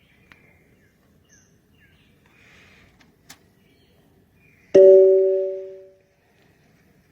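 A single loud ringing tone with two pitches that starts suddenly and fades out over about a second, over faint bird chirps and a short click.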